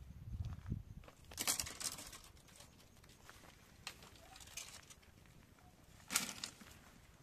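Dry tree branches rustling and snapping as they are pulled and broken by hand. There are two louder bursts, one about a second and a half in and one about six seconds in, with lighter crackles between them.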